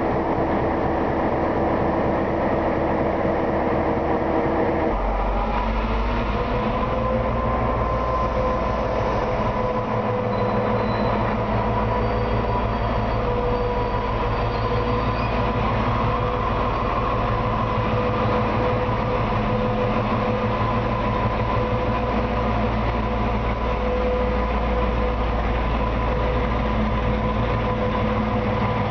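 Diesel locomotive hauling a passenger train along a station platform, its engine running with a steady drone. About five seconds in, a deeper rumble comes in and held tones rise over it as the locomotive draws near.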